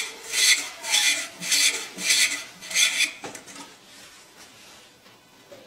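Badminton racket string being pulled through the main strings on a stringing machine: six rasping zips of string rubbing on string, about one every half second. They stop about three seconds in with a light click.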